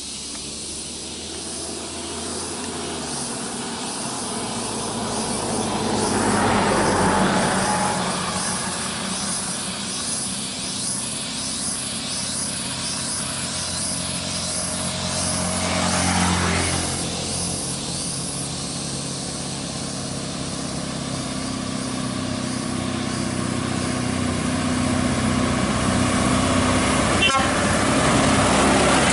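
Scania R580's 16-litre V8 diesel running under load as the truck approaches with a heavy excavator bucket on its trailer, its steady engine note growing louder. Lighter vehicles, a motorcycle among them, pass close by twice, about six and sixteen seconds in.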